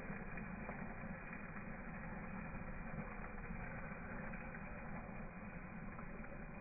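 Steady hissing and splashing as a stream of water pours onto the smoking lithium battery of a crashed DJI Mavic Pro drone.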